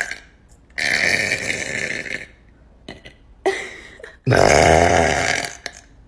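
A woman burping loudly three times: a long burp about a second in, a short one near the middle, and the loudest, longest burp at about four seconds.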